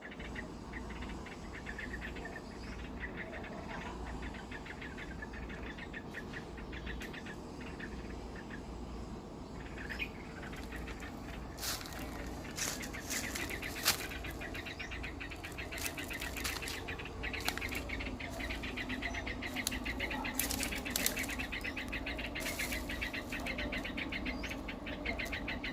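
Backyard ambience of rapid, evenly pulsed chirping that grows stronger about halfway through. A few sharp clicks sound over a low steady hum.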